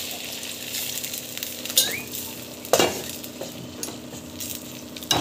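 Perforated steel ladle stirring water in a hot non-stick kadai, clinking and scraping against the pan a few times, over a fading sizzle from water just poured onto the hot oil tempering for upma.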